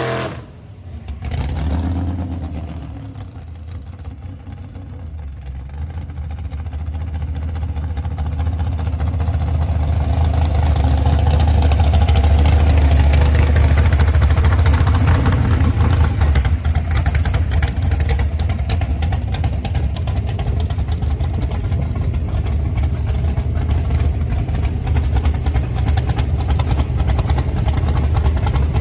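A gasser hot rod's engine running with a deep low rumble. It grows louder over about the first ten seconds, then holds steady.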